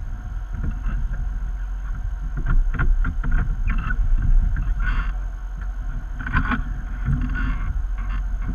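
Off-road 4x4 engine idling: a steady low rumble, with short bursts of higher sound breaking in several times.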